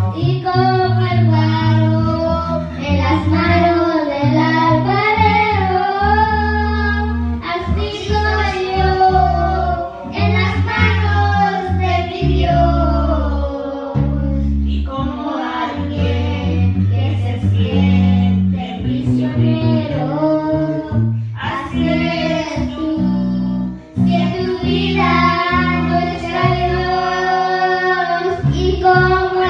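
A young girl singing a Spanish-language worship song into a microphone, amplified through a PA speaker, accompanied by an electric guitar playing sustained low notes beneath her voice.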